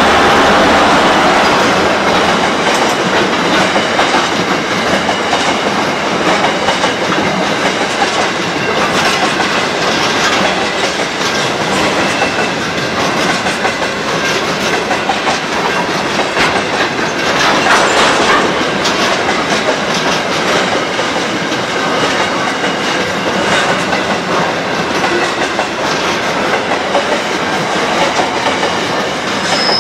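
Freight train's hopper wagons rolling past close by: a steady rumble with the wheels clicking over the rail joints. It is a little louder in the first second or so as the last locomotive goes by.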